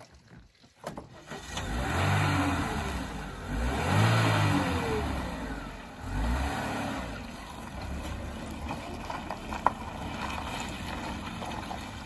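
A car's engine running and accelerating, with road noise that swells, loudest about four seconds in, then settles to a steadier run. A single sharp click near the end.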